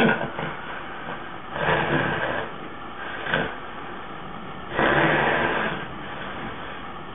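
A sleeping man with sleep apnea snoring in noisy breaths: two long breaths about three seconds apart, with a brief one between them.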